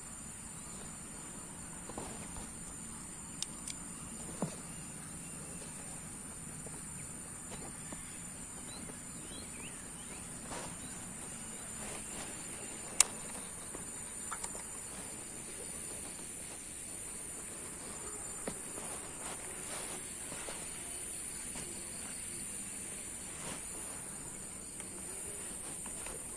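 Steady, high-pitched drone of insects, with a few sharp clicks and taps scattered through it, the loudest about halfway through.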